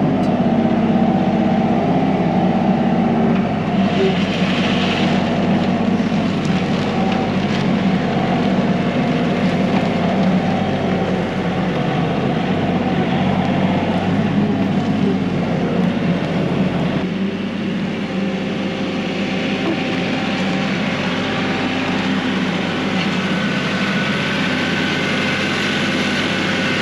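Kioti NS6010 compact tractor's diesel engine running steadily under load while it works a loader bucket, its note dropping slightly about two-thirds of the way through.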